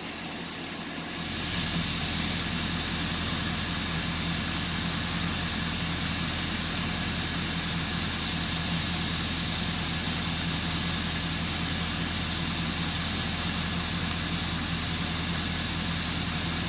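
Truck engine idling steadily. It grows louder about a second in, then holds an even hum.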